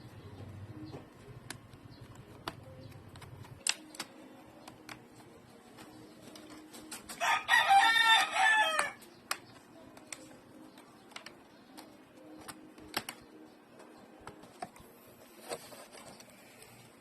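A rooster crows once, about seven seconds in, for under two seconds. Scattered light clicks and taps come and go throughout.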